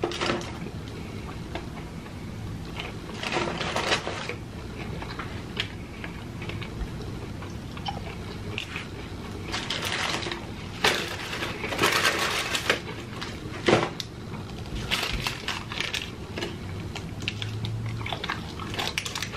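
Close-miked chewing of fried chicken and french fries, with a few louder bursts of paper rustling as food is taken from the box and the fry sleeve, the longest about ten to thirteen seconds in.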